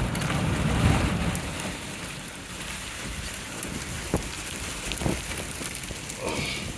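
Wind rushing around a moving vehicle, with a low rumble that eases after about a second and a half and a few scattered faint ticks.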